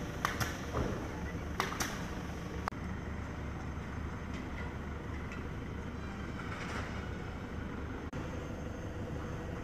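Steady low mechanical rumble and hum, with a few sharp clicks and knocks in the first three seconds.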